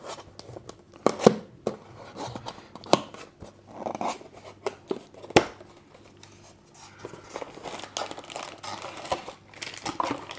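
Plastic packaging and paper crinkling and rustling as accessories are lifted out of a cardboard box, with several sharp clicks and knocks of items being handled.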